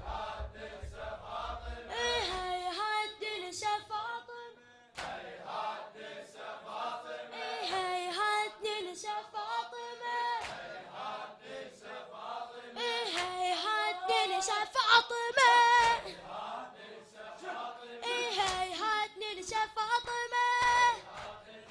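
Male voices chanting a Shia latmiyya lament for Fatima, unaccompanied, in long held phrases with a brief pause about four seconds in.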